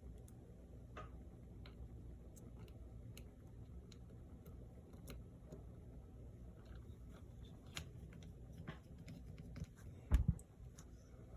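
Faint, scattered small clicks of a precision screwdriver and metal screws as screws are driven in to secure a replacement display on a MacBook Air, with a louder knock about ten seconds in.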